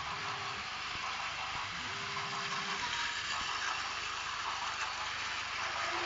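Battery-powered Plarail toy trains running on plastic track: a steady whirring and rattling of small motors and wheels.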